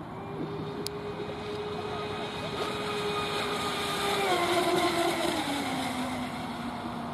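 Electric radio-controlled speedboat running at speed on LiPo power, its motor and propeller giving a steady high whine that grows louder and then drops in pitch about four seconds in as the boat passes by.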